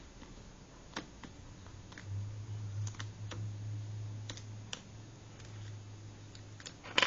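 Scattered small clicks and taps as tools and fingers work on the plastic and metal parts of a T-Mobile G2 smartphone being taken apart. The loudest click comes right at the end. A low steady hum runs from about two seconds in until shortly before the end.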